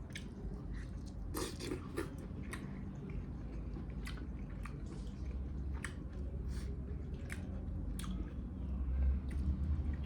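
Chewing and biting into spicy mutton leg pieces: wet mouth sounds with sharp smacks and clicks at irregular intervals, a few stronger ones close together about a second and a half in.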